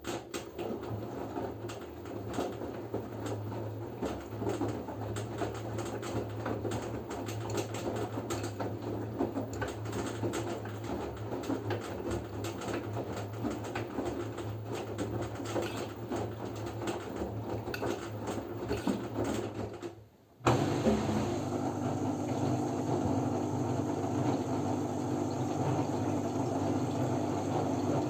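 LG F10B9LD front-loading washing machine in its second rinse, its drum motor starting suddenly and running with a steady low hum. About 20 seconds in it stops for a moment, then runs on louder.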